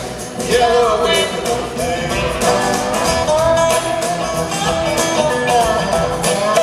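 Live blues band playing an instrumental passage: acoustic guitar with upright bass and drums under a sliding melody line that bends and glides in pitch.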